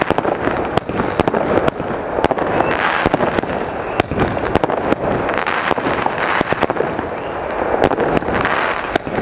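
Consumer firework battery (cake) firing shot after shot, a dense run of sharp bangs with no pause.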